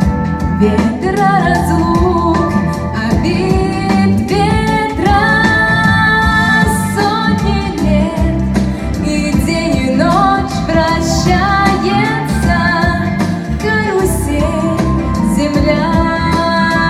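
A woman singing a song over full instrumental accompaniment with a steady beat.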